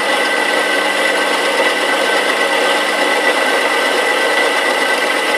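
Drill press cutting steel with a 13 mm twist drill, driven by a 380 V three-phase induction motor wired in star and run on 220 V. It is a steady whine and grind as the bit is pressed hard into the metal.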